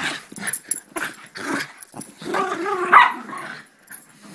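American Eskimo dogs growling and yipping in rough play: a run of short sounds, the longest and loudest about two and a half to three seconds in.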